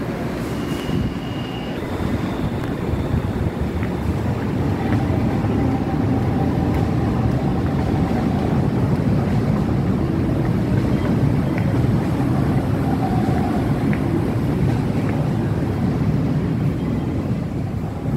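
Low rumble of an LRT-1 light-rail train at an elevated station, swelling through the middle and easing off near the end.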